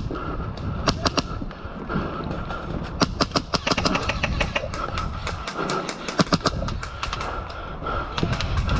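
Airsoft guns firing: several bursts of rapid sharp shots, with clusters about a second in, around three seconds in and around six seconds in.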